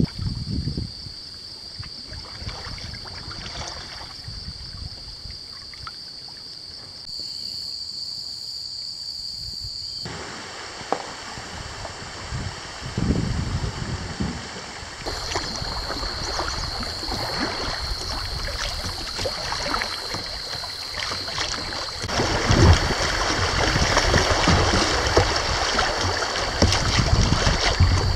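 Shallow river water rippling and running around a moving kayak, with occasional paddle splashes and wind on the microphone; the water sound changes abruptly several times and is louder near the end.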